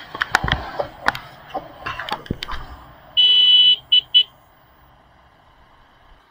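A run of sharp clicks and knocks, then a vehicle horn: one honk of about half a second followed by two short toots.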